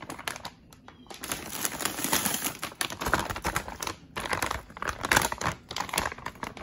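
Stiff plastic food pouches crinkling and crackling as they are handled and swapped, in a busy irregular crackle with a short lull before it starts and a brief break near the middle.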